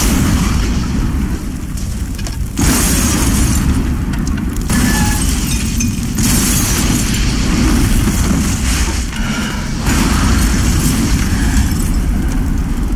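Explosion sound effects from a TV drama soundtrack: a building blowing up in a series of blasts, a fresh one about every three seconds, over a continuous deep rumble of fire.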